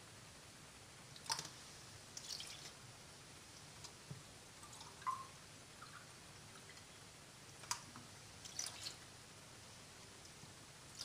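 Soy milk pouring from a carton into a bowl of flour and cereal that is being mixed by hand: faint wet squishes and drips with a few sharp little clicks, quiet in between.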